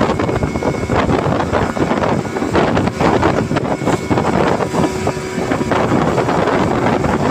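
Small motorised fishing boat running at speed over open sea: wind buffeting the microphone over the rush of water along the hull and the running engine, a steady loud noise with gusty swells.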